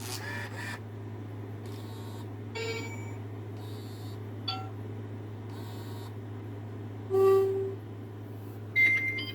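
WowWee RoboBoa robotic snake toy giving a few short electronic beeps and tones, the loudest about seven seconds in, over a steady low hum; the toy is in need of repair.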